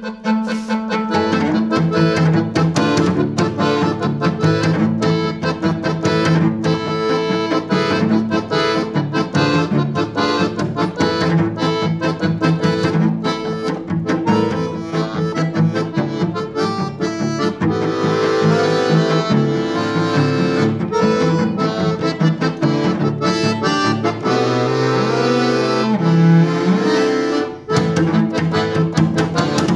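Accordion and cello duo playing a piece of quick, rhythmic notes over sustained low tones. A low line slides up and down in pitch about three-quarters of the way through.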